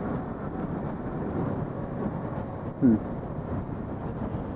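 Steady motorcycle riding noise, engine and road mixed with wind on the microphone, with a short falling tone about three seconds in.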